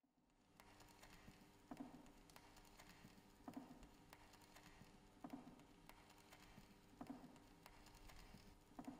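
Faint sound fading in from silence: a soft low thump repeating evenly about every second and three-quarters, with light clicking and a steady faint hum between.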